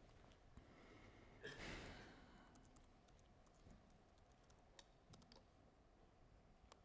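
Near silence, with a breath into the microphone about one and a half seconds in, then scattered faint clicks from an Apple laptop's keys and trackpad being worked.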